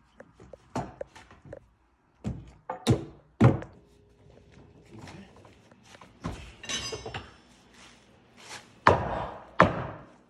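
Irregular heavy thunks and knocks from work on a wooden floor, a dozen or so blows at uneven spacing, the loudest about three seconds in and again near the end.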